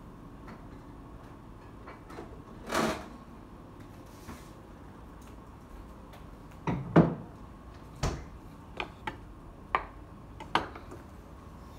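Kitchen handling noises: a fridge door swung shut about three seconds in, then a series of sharp knocks on the counter, the loudest about seven seconds in, ending with a knife cutting on a wooden chopping board.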